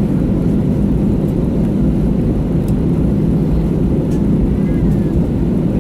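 Steady low rumble inside an Airbus A320 cabin while it taxis after landing, the engines running at idle.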